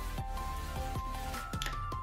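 Background music: a simple melody of held notes stepping between pitches over a steady beat.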